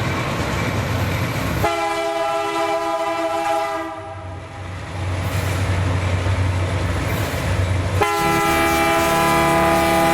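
Train horn sounding two long chord blasts, the first about two seconds in and the second starting about eight seconds in, with the train's rumble between them.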